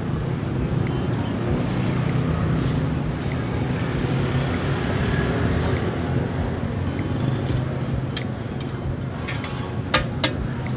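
Steady street traffic noise mixed with the sizzle of an egg frying on a flat steel griddle. A few sharp metal clicks near the end as a spatula and potato masher are handled on the griddle.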